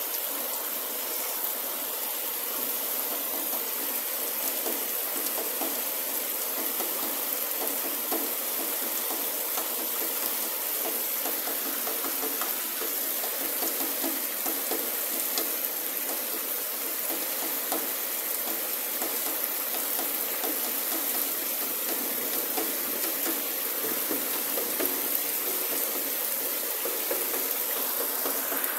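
Heavy rain pouring steadily: a dense hiss of drops splashing on wet ground, with many small ticks of individual drops.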